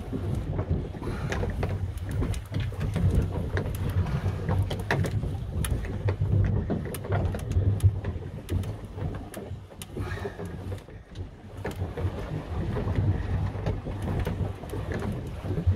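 A boat's engine running with a steady low hum under wind and sea noise on the microphone, with light clicks and knocks scattered throughout.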